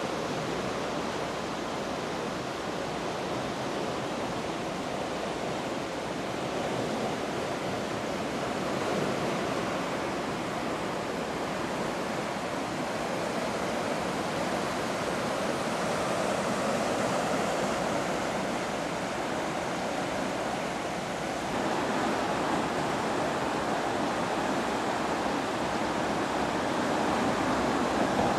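Steady rushing of the swollen Mura river in flood, growing a little louder about three-quarters of the way through.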